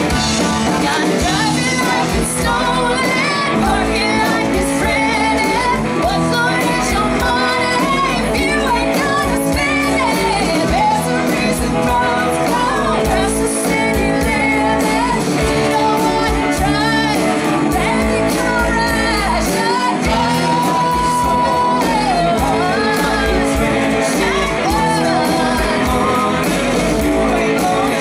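Live rock band playing a song: sung vocals over electric guitars, bass guitar, keyboard and a drum kit.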